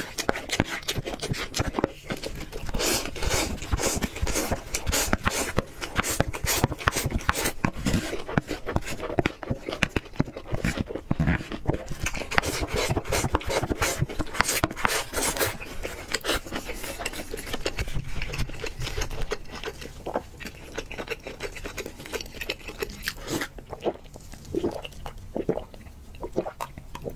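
Close-up eating sounds: a wooden spoon scraping and clicking against a plastic takeout bowl as rice is shovelled into the mouth and chewed, a dense run of quick scrapes and clicks that thins out in the last few seconds.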